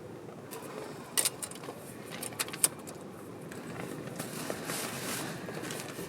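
Camping gear being handled: a few sharp clicks and clinks, then soft rustling.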